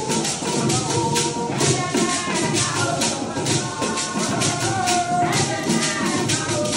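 Hand-held gourd rattles shaken by dancers in a steady rhythm, about three strokes a second, with voices singing along.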